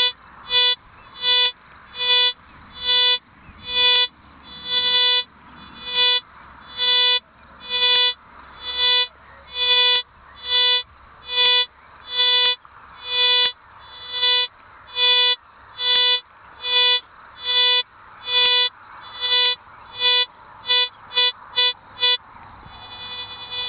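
Golden Mask metal detector giving a target signal: a loud, clear beep on each sweep of the coil over a buried coin, at roughly one to two beeps a second. The beeps come quicker near the end, then give way to a fainter steady tone.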